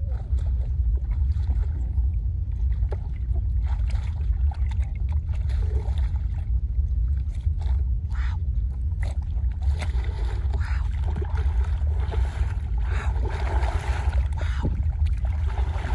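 Steady low wind rumble on the microphone, with shallow muddy water splashing as a person thrashes and lunges through it with his hands. The splashing grows louder in the second half.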